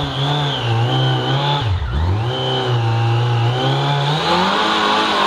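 Yamaha FJR1300 inline-four on its stock exhaust held at high revs for a burnout, dropping briefly a little before two seconds in, then climbing again near the end. Per the riders, the rear tyre keeps gripping rather than spinning freely.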